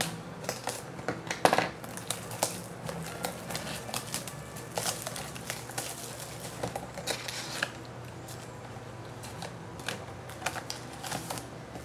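A sealed box of trading card packs being opened and unpacked by hand: irregular crinkling, rustling and sharp clicks of wrapper and cardboard, loudest about one and a half seconds in.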